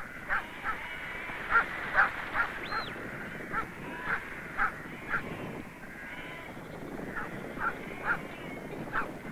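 Sheepdogs barking in short, sharp, irregular barks, at times several a second, driving a flock of sheep over a steady background noise. A brief high whistle sounds once about three seconds in.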